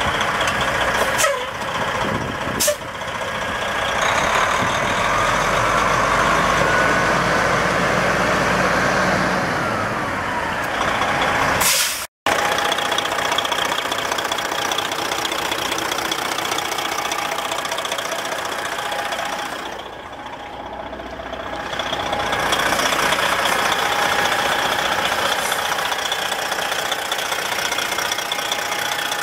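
Detroit Diesel Series 60 12.7-litre inline-six diesel of a Freightliner FLD120 semi tractor running. Its pitch shifts up and down for the first dozen seconds, with two short sharp sounds in the first three seconds. After a cut it idles steadily close up in the engine bay, dipping briefly about two-thirds through.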